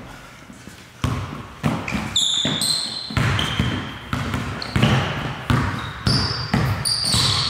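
A basketball dribbled on a hardwood gym floor, about two bounces a second starting about a second in. Sneakers squeak on the floor between the bounces.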